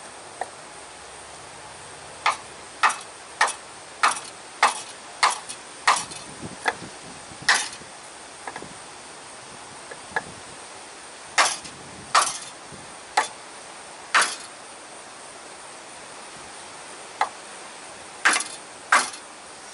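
Hammer knocking on a block of wood to drive a grease seal into the S-cam bushing bore of a truck air brake, a little at a time. Sharp knocks in bursts: a quick run of about nine, then four spaced about a second apart, then two more near the end.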